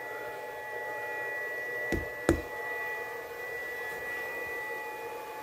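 Two sharp knocks about a third of a second apart, the second louder, over a steady high-pitched whine and hum.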